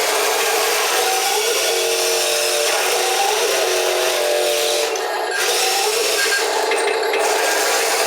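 A wheel loader working: its motor runs steadily with a few short shifts in pitch, over continuous scraping and rattling.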